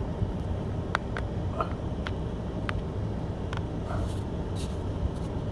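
Truck engine running slowly and steadily while the truck is manoeuvred back and forth, with a few sharp clicks and snaps scattered through it.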